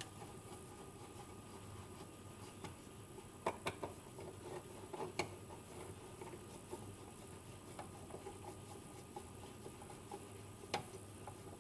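Faint clicks and light taps of a hand screwdriver tightening an electrical receptacle's mounting screws through stacked plastic shims: a quick cluster of three a few seconds in, another about a second later, and one near the end.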